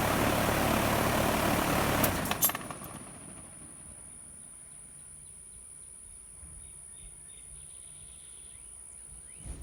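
2011 Nordyne air conditioner's outdoor unit running, then shutting off about two seconds in with a few clicks; the running noise dies away within about half a second. Faint bird chirps follow.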